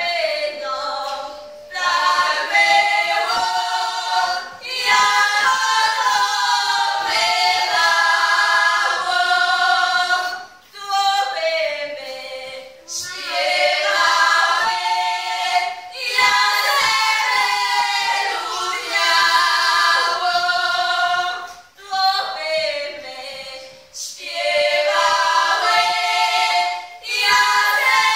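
A group of women singing a Polish highland (Górale) folk song unaccompanied, in several voices, in phrases a few seconds long separated by short breaks for breath.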